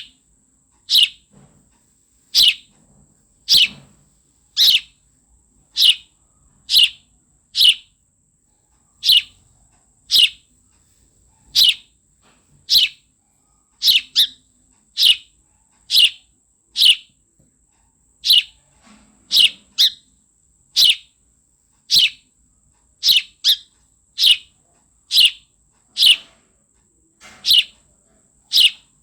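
Sparrow chirping: short, sharp chirps repeated about once a second, now and then two in quick succession.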